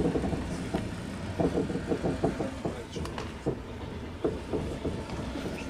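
Passenger train running on rails, heard from inside the carriage: a steady low rumble with a run of short knocks and rattles from the wheels and car body.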